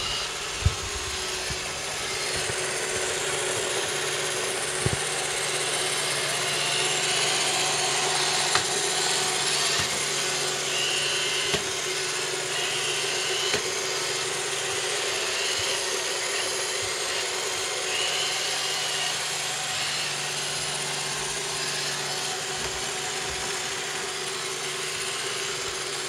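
iRobot Roomba 780 robot vacuum running steadily as it cleans: a low hum and a higher steady whine over an even hiss, not too loud, with a few light knocks now and then.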